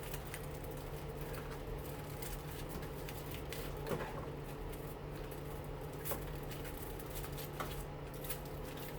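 Steady low hum with a few faint clicks and taps, scattered about four, six and seven and a half seconds in, from handling the washing-machine motor's windings.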